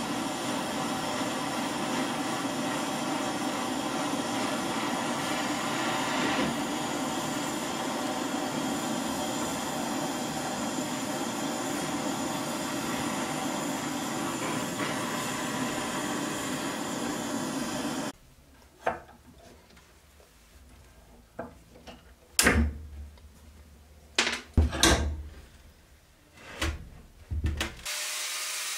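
Gas blowtorch flame roaring steadily while it heats the rusted joint of a cleaver head. It cuts off suddenly, followed by a series of sharp metal clanks and knocks as the cleaver is handled in a steel vise, and a power tool starts to spin up near the end.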